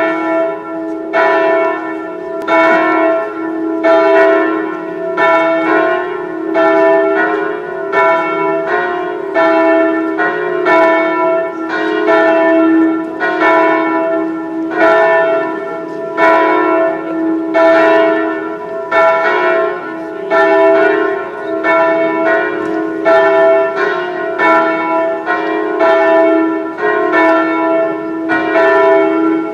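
Church bells ringing for a funeral: repeated strokes about one and a half a second, each ringing on and overlapping the next.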